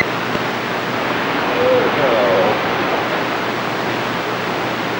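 CB radio receiving: a steady rush of static from the speaker, with a weak, distant voice breaking through the noise briefly about two seconds in.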